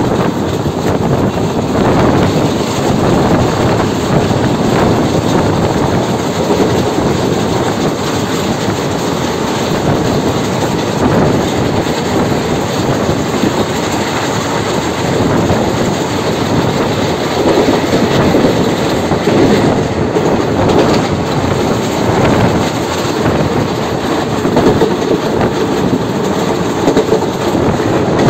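Indian Railways passenger coach running along the track, heard from on board: a steady rumble of steel wheels on rail with a clatter over the joints.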